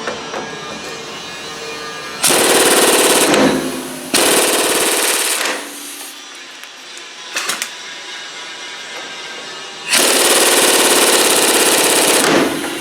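Impact wrench hammering in three bursts, the last the longest: work on the front suspension bolts while the lower arm is replaced.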